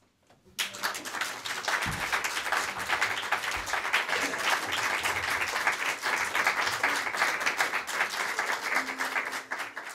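Audience applauding: many hands clapping, starting suddenly about half a second in after a moment of silence, steady throughout, and dying away at the end.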